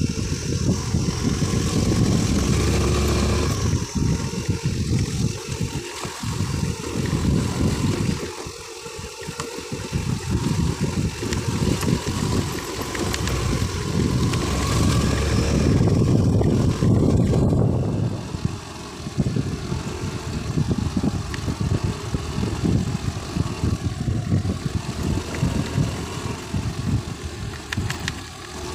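Motorcycle engine running at low road speed as the bike rides over a rough, rocky dirt track, the sound rising and falling in loudness.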